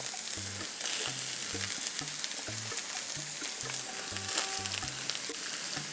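Sliced champignon mushrooms sizzling steadily in a frying pan with oil, minced pork-and-beef and onion over high heat, with a few light clicks of stirring.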